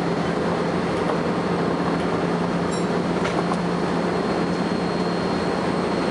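Volvo B10BLE bus running, a steady low drone and rumble with a thin, constant high-pitched whine over it, the bus's strange noise of unknown cause; the whine grows stronger in the second half. A very short high beep about three seconds in.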